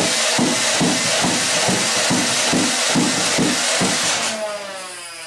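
Nerf Ultra Select blaster's flywheel motors running as it fires a full-auto burst of about ten foam darts, roughly three shots a second. Near the end the firing stops and the motors wind down with a falling whine.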